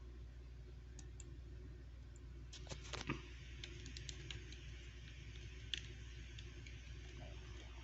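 Scattered light clicks and taps from small hard objects being handled, with a short cluster of louder knocks about three seconds in and a single sharp click near six seconds, over a steady low hum.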